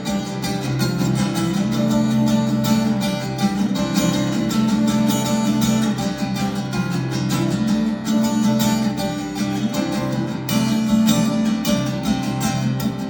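Guitar strumming chords steadily: an instrumental passage of a live song with no singing.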